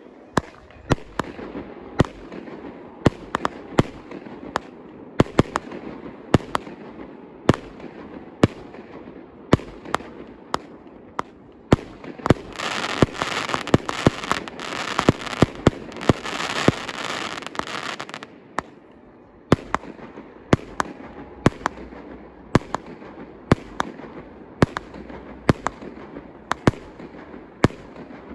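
Fireworks display being fired: a steady run of sharp bangs from bursting fireworks, about two a second. Midway, for about five seconds, a dense crackling wash fills in between the bangs.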